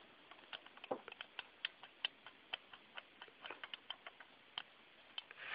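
Faint, irregular small clicks and taps of a hard plastic bobblehead toy being handled and tipping over on a surface, several a second at times, with short gaps.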